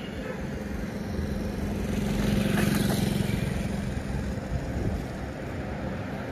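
A vehicle passing close by, its noise swelling to a peak about halfway through and then fading, with a steady low hum underneath.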